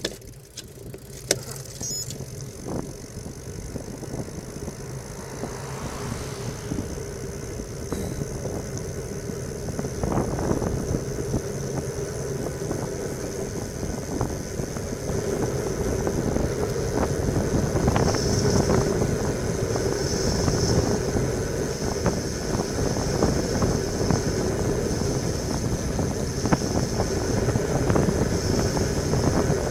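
Wind rushing over a bike-mounted camera's microphone and road bike tyres humming on the asphalt, growing steadily louder as the bike picks up speed downhill. There is a sharp click about a second in and scattered knocks from the road.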